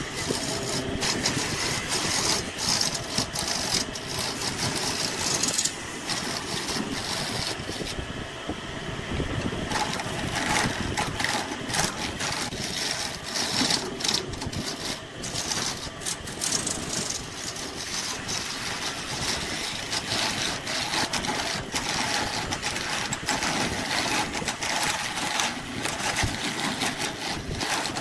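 Wood lathe running while a turning tool cuts the spinning wood: a steady motor hum under a continuous rough, scraping cutting noise.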